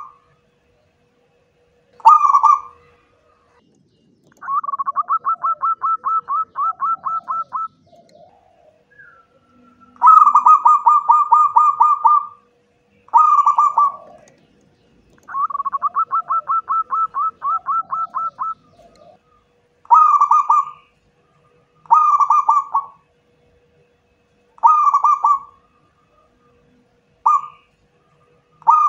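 Zebra dove (perkutut) cooing: a series of bursts of fast, pulsing coo notes. Two are longer trills of about three seconds, and the rest are shorter coos spaced a few seconds apart.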